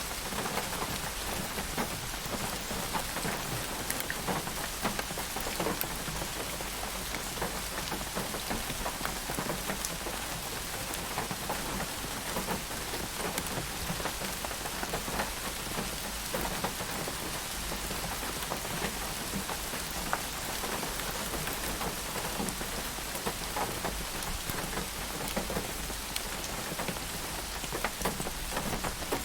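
Steady rain falling, with many small, individual drop impacts heard all through.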